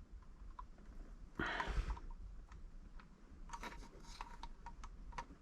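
Faint clicks and rubbing of a plastic wiring-harness connector being handled and pushed into the back of an AEM air/fuel ratio gauge, with a short rustle about one and a half seconds in.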